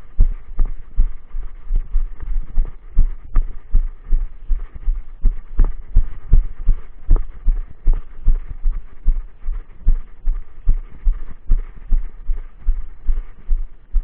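Footsteps of a hiker walking on a dirt trail, picked up as a steady rhythm of low thumps through a body-worn action camera, roughly two to three a second.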